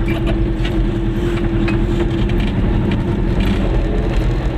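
Goggomobil's two-stroke twin-cylinder engine running steadily as the small car drives slowly, heard from inside the car.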